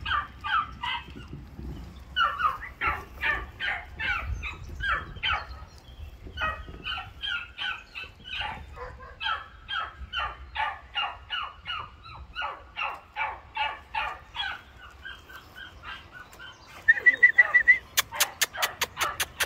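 Animal calls, short and high, repeating about three times a second without a break. Near the end a brief held high note comes first, then a fast run of sharp clicks, the loudest sound here.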